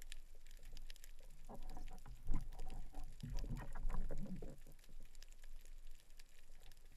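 Underwater sound through a GoPro's housing: a steady crackle of fine clicks and a low rumble, with muffled, garbled wavering sounds from about 1.5 to 4.5 seconds in.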